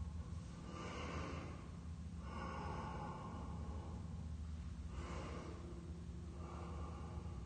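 A man breathing slowly and audibly in and out during stretching, about four long breaths of a second or so each, over a steady low hum.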